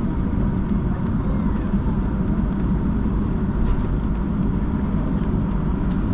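Steady low rumble inside the cabin of a Boeing 757-200 on the ground after landing, with a faint steady hum and a few light ticks.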